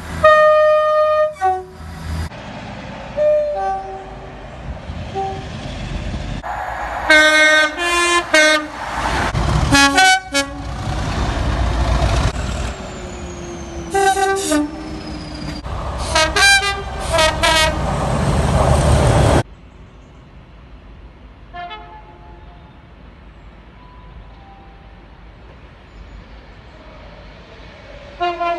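Train horns sounding in a series of blasts of a second or two each, over the rumble of a passing train; one blast falls in pitch as the train goes by. After an abrupt cut about two-thirds of the way in, the sound is quieter, with a couple of faint horn blasts.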